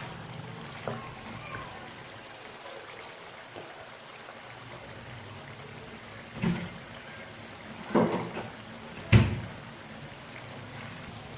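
Beef karahi sizzling steadily in the karahi over high heat. A few sharp knocks come in the second half, the loudest about nine seconds in.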